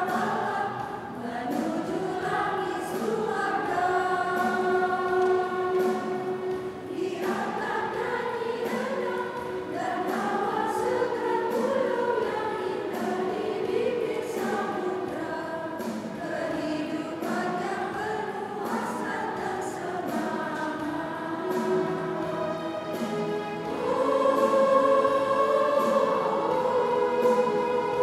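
Women's choir singing a Catholic hymn in two-part harmony, with long held notes, swelling louder near the end.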